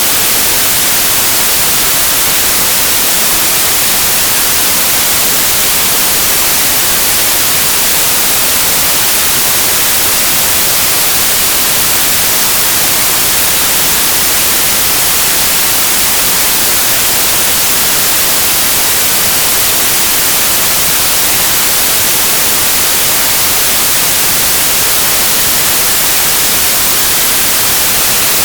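Steady white noise: an even, unbroken hiss, brightest in the treble, with no changes in level.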